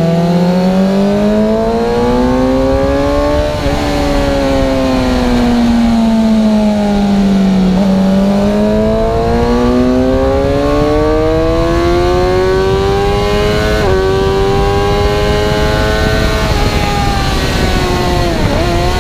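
Suzuki GSX-R750's inline-four engine under hard riding. Its pitch climbs, breaks at a gear change, sags for a few seconds, then climbs again to another gear change. Near the end the revs fall with quick blips, as on downshifts. A steady rushing noise runs underneath.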